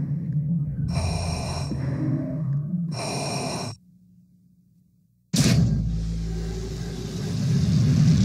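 Film trailer sound design: two loud breaths over a low pulsing drone, then about a second and a half of near silence, then a sudden boom about five seconds in that opens into a sustained low score, swelling louder near the end.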